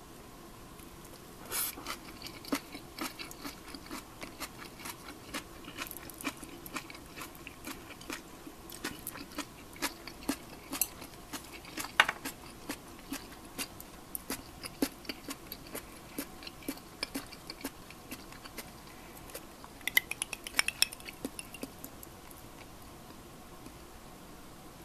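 Light clicks and taps of wooden chopsticks on a plate, two or three a second, with one sharper knock about twelve seconds in. About twenty seconds in comes a quick cluster of ringing clinks of ice in a glass.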